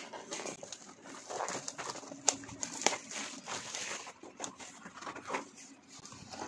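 A long cardboard box being handled and turned over: scraping and rustling with scattered taps, two sharp clicks a little over two and about three seconds in.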